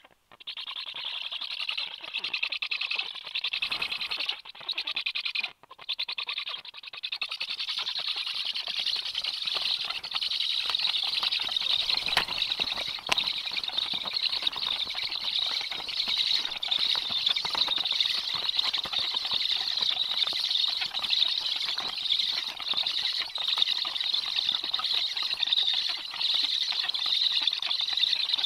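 Juvenile black storks begging for food from a parent at the nest: a continuous high, hissing begging chorus mixed with wing-flapping. It breaks off briefly twice in the first six seconds, then runs louder and unbroken.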